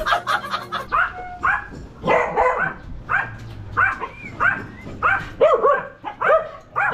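A dog barking repeatedly, about two short barks a second.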